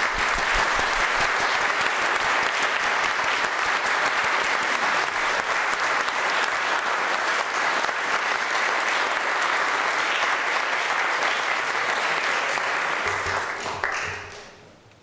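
Audience applauding, many hands clapping in a steady stream that dies away near the end.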